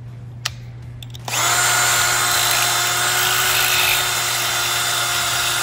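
Makita cordless drill spinning a letter N drill bit through the bore of a cast steering-column control arm, polishing and cleaning up the roughly cast hole. The drill starts about a second in, after a light click, and runs at a steady speed.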